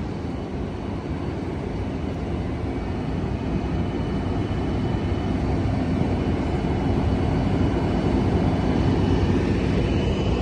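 Siemens SC-44 Charger diesel-electric locomotive standing at the platform with its engine running: a steady, low diesel drone that grows gradually louder.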